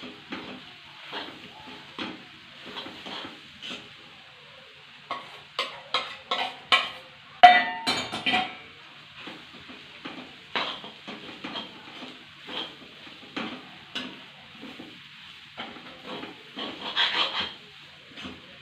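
A cooking utensil stirring and scraping chopped chapati and egg around a pan in irregular knocks and scrapes over a faint sizzle, with one louder ringing clang against the pan a little before halfway.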